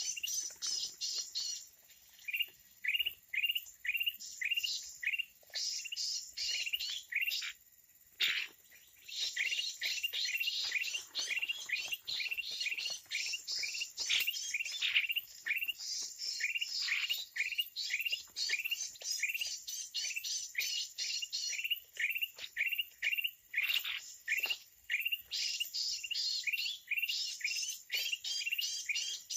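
Asian red-eyed bulbuls chirping: a rapid, almost unbroken run of short, sharp, downward-sweeping chirps, several a second, with a brief lull about eight seconds in.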